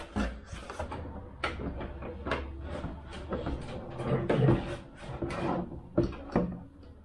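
Irregular clicks, knocks and rustles of small model-aircraft parts being handled on a workbench, over a low steady hum.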